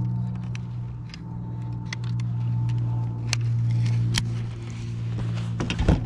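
Small electric trolling motor humming steadily as it drives the kayak, with a few light clicks and knocks of fishing gear being handled near the end.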